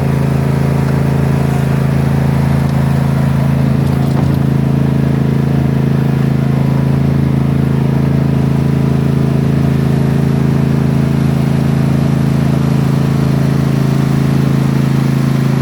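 Toro lawn mower's engine running steadily at one even pitch, loud and unchanging throughout.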